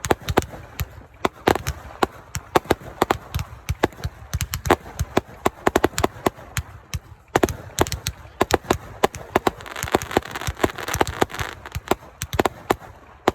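Fireworks going off in a rapid, irregular string of sharp bangs and pops, dozens of reports with a denser crackling stretch about two-thirds of the way through.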